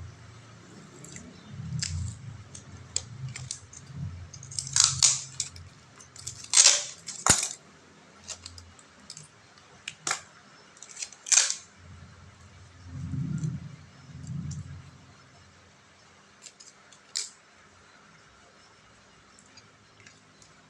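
Scattered clicks, taps and short scrapes from a smartphone and its replacement LCD screen being handled and fitted by hand, not yet glued, with a few dull low thumps.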